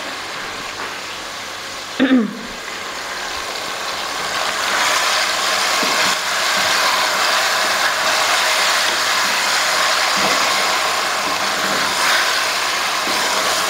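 Marinated beef frying in hot oil in a metal karahi: a steady sizzle that grows louder from about four seconds in, with a wooden spatula scraping and knocking against the pan as the meat is stirred. There is a short, sharp sound about two seconds in.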